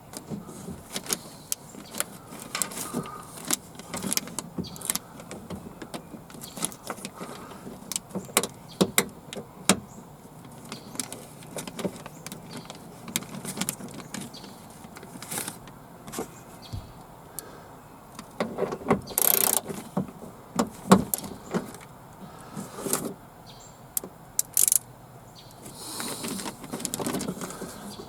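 Irregular clicks, taps and knocks of a car's rear window regulator and motor assembly being shifted and lined up by hand inside the door, with a louder metal rattle about two-thirds of the way through.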